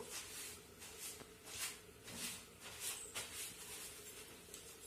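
Squid curry simmering under an aluminium lid: soft, irregular hissing and sputtering bursts every half second or so as it bubbles, over a faint steady hum.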